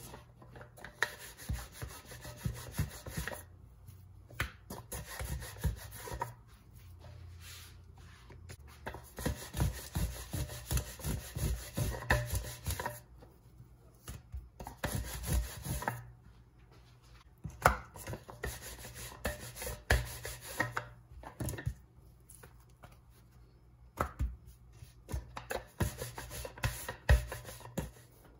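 A wooden rolling pin rolling out a coiled paratha dough on a granite countertop: quick knocks and rubbing in runs of a few seconds, with short pauses between them.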